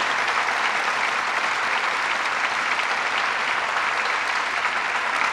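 Audience applauding steadily, a dense even clapping that holds throughout.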